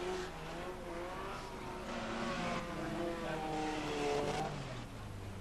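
Several demolition derby cars' engines running at moderate revs, their pitches slowly rising and falling as they lap under caution.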